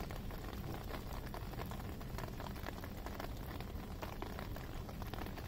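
Steady rain falling on a wet terrace, a dense patter of small drop ticks over an even hiss.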